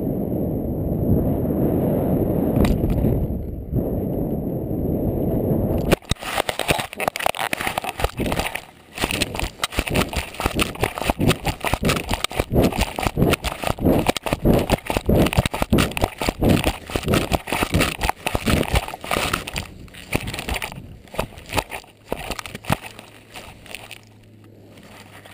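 Wind buffeting the microphone of a foot-mounted GoPro Hero2 as the jumper descends under an SF-10A round parachute, a loud low rumble. About six seconds in it gives way abruptly to dense, irregular crackling and scraping: the camera housing rubbing against the jumper's boot and camouflage trousers as the leg moves.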